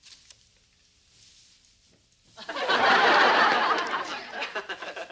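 Studio audience laughing. The laugh breaks out suddenly about halfway through, after a near-silent pause, and tapers off near the end.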